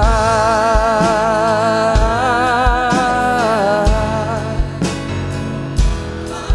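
Live worship band playing: a singer holds one long, wavering note for about four seconds, then drops out, over piano, guitar and drums with a steady kick-drum beat.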